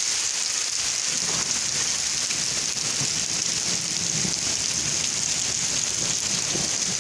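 Steady, even hiss of rushing water.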